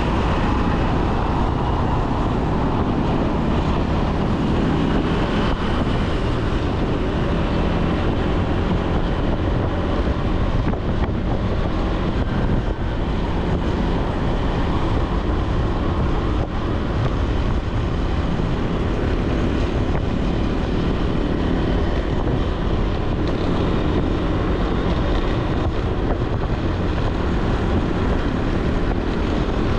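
Steady wind noise on the microphone over a motorbike's engine and road noise, riding at speed.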